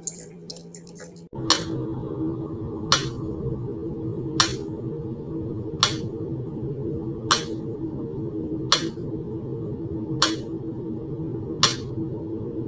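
Pyramid-shaped mechanical metronome ticking at a slow, even beat, about one sharp tick every second and a half, over a steady low hum.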